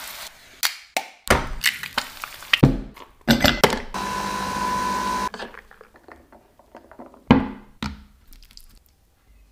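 Oil sizzling briefly, then a quick run of sharp clicks and knocks, then a Nespresso coffee machine running with a steady hum for about a second and a half as it brews onto ice cubes in a glass. Near the end, two thunks as a crisp fried tortilla is set down on a plate.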